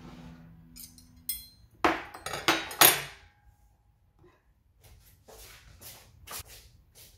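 Metal cutlery clinking and clattering as a knife and fork are set down on a table, with a few loud sharp clatters about two to three seconds in. Softer short taps and rustles follow near the end.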